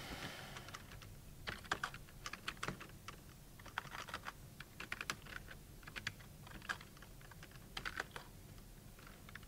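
Computer keyboard typing: irregular keystrokes in short runs with brief pauses between them.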